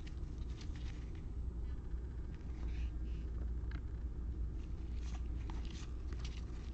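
Football trading cards being handled with gloved hands as a pack is opened and the cards are sorted: scattered soft rustles and clicks of card stock and wrapper over a steady low hum.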